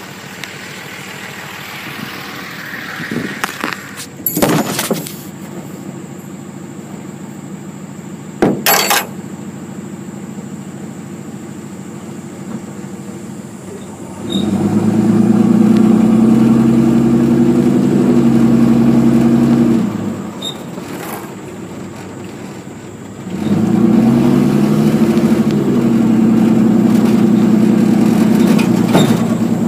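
Sharp knocks and rubbing of the tablet being grabbed and handled, then a steady engine drone twice, each about six seconds long, the second starting a few seconds after the first cuts off.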